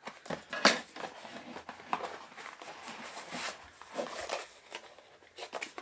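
A small cardboard box being opened and handled by hand: scattered brief scrapes, rustles and clicks of cardboard flaps and packaging.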